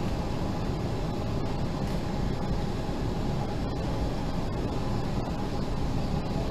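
Steady rushing background noise with a low rumble, unchanging throughout.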